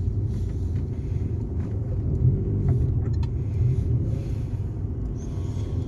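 Steady low rumble of a car driving, its engine and road noise heard from inside the cabin.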